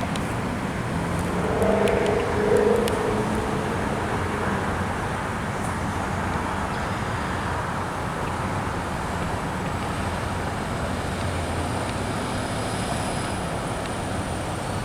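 Steady road traffic noise from vehicles stuck in a jam, with a short pitched tone about two seconds in.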